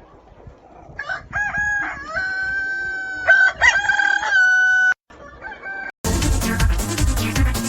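Rooster crowing: one long crow held on a steady pitch, with short swoops at its start and middle, then a short call. Loud electronic music with a beat cuts in about six seconds in.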